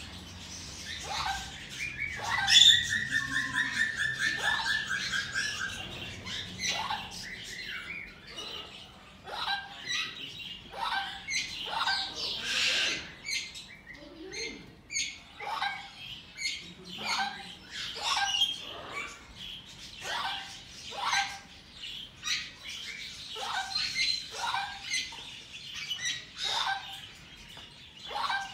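Green-cheeked conures chirping: a string of short chirps, with a rapid trilling call from about two to six seconds in.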